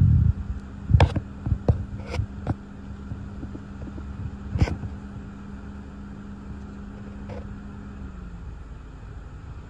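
Thunderstorm outflow wind buffeting the microphone, with a strong gust at the start. A handful of sharp taps about a second in and one louder tap a little before the halfway point, over a steady low hum that stops near the end.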